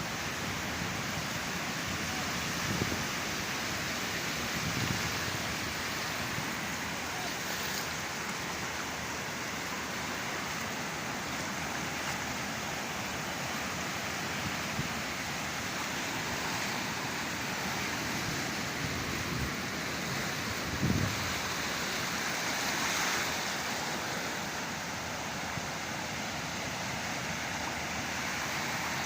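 Rough sea surf breaking and washing in, a continuous rushing hiss, with a few short low rumbles along the way.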